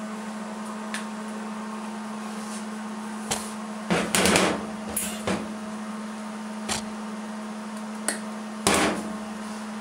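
Short metal clanks and knocks from a hammer and tools being handled on a steel truck door panel, the loudest about four seconds in and again near the end, over a steady low hum.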